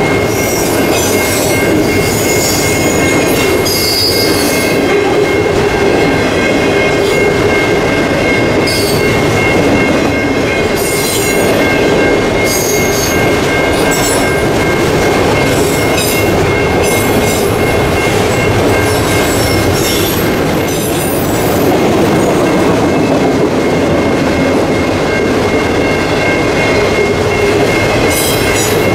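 Freight train's autorack cars rolling past: a loud, steady rumble of steel wheels on rail, with irregular high-pitched wheel squeal coming and going.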